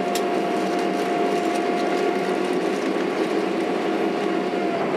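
Cabin noise inside a Boeing 767-300 taxiing: the engines' steady whine over a dense hum. A sharp click comes just after the start, and the whine dips slightly in pitch near the end.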